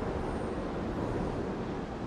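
New York City subway train rumbling in a station, with faint high wheel squeal in the first second that fades as the rumble eases slightly.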